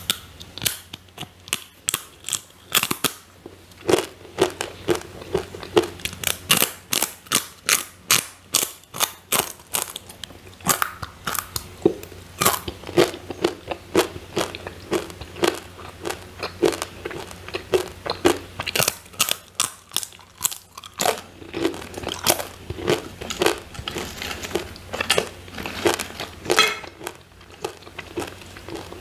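Crisp sweet potato chips being bitten and chewed close to the microphone: sharp, irregular crunches, two or three a second.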